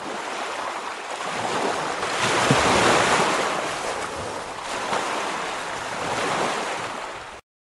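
Ocean surf washing ashore, a steady roar of waves that swells to a peak about three seconds in and rises again twice before cutting off suddenly near the end.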